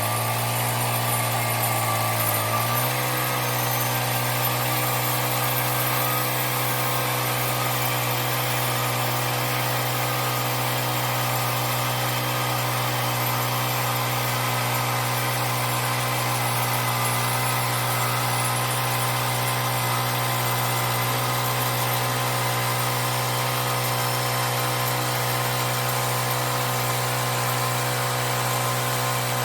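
The engine of a homemade band sawmill running steadily under load as the blade cuts through a big log. Its pitch wavers in the first few seconds, then holds steady.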